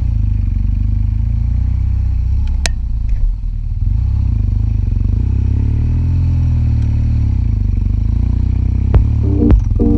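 Vehicle engine running steadily under load while driving off-road, with a sharp click about two and a half seconds in. Music with piano-like notes comes in near the end.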